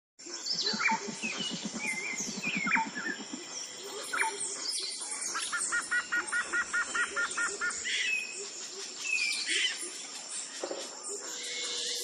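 Several small birds chirping and singing together, with many short whistled notes throughout. A fast, low, pulsing call runs through the first three seconds, and a quick even series of paired notes runs through the middle.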